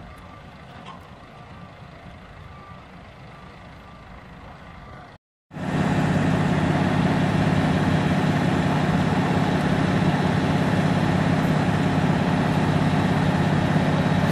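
Faint steady background for about five seconds, then, after a brief break, a box lorry's diesel engine idling, loud and steady.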